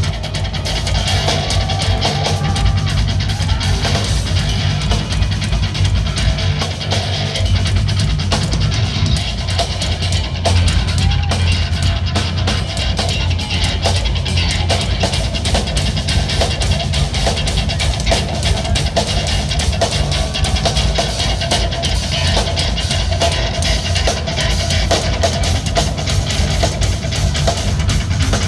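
A progressive metal band playing live, loud and dense: electric guitar over a busy drum kit, with a heavy low end.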